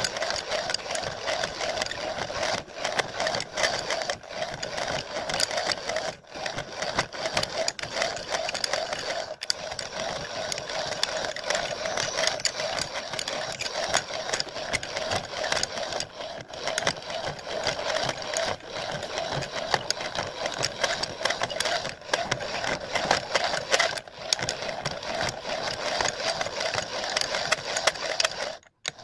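Improvised turning rig running, a metal sleeve spinning against a cutting tool that shaves it down: a steady motor drone with rapid, fine scraping chatter from the cut. It stops just before the end.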